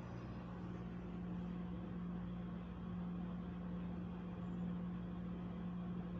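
Steady low mechanical hum over a faint even hiss, with no distinct events.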